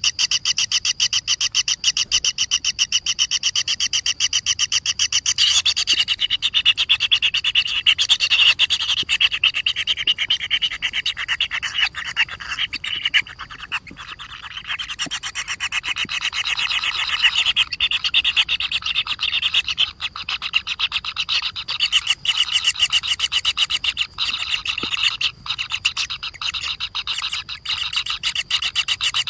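Animal calls: a dense chorus of rapid rasping pulses, continuous and loud, fuller and more intense between about 6 and 13 seconds in and again toward the end.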